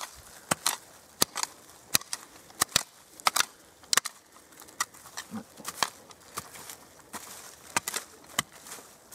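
A long-handled hand digging tool chopping into forest soil and leaf litter, making a series of irregular sharp strikes and crunches about once or twice a second as a hole is dug to recover a metal-detector find.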